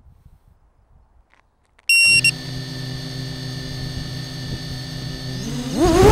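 An FPV racing quadcopter restarting from the ground after a crash: about two seconds in, a short loud electronic beep as it is armed, then its brushless motors spin at a steady idle hum. Near the end the motor whine rises sharply in pitch as the throttle comes up for take-off.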